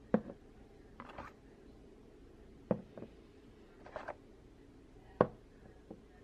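Glass nail polish bottles being set down one by one on a wooden tabletop: a series of sharp knocks and clinks at uneven intervals, loudest just after the start and again about five seconds in.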